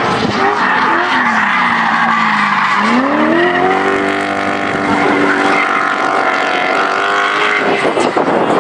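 BMW E34 drift car at full throttle, its rear tyres squealing and skidding through a smoky drift. The engine note sinks for the first few seconds, then climbs steeply about three seconds in and holds high.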